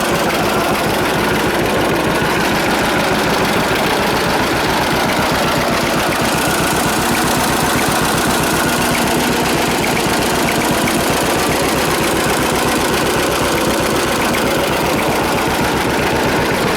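1946 John Deere AR's two-cylinder engine running steadily, its firing pulses even and unbroken.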